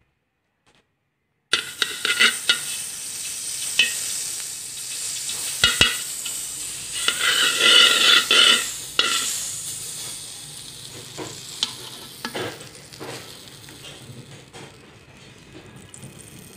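Silent for the first second and a half, then butter sizzling as it melts in a hot stainless steel kawali, with clicks and scrapes as it is stirred around the pan. The sizzle is loudest near the middle and dies down toward the end as the butter finishes melting.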